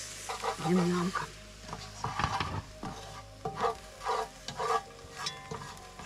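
Honey mushrooms sizzling in a frying pan while a utensil stirs and scrapes them in a series of short strokes from about two seconds in.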